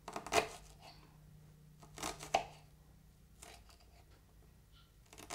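Kitchen knife dicing a shallot on a wooden chopping board: a handful of separate crisp knife strokes, a couple near the start, a couple about two seconds in and one at the end.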